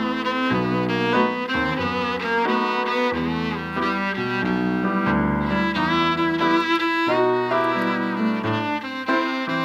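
Instrumental music led by a bowed violin over a low, moving bass line, with the notes changing every half second or so.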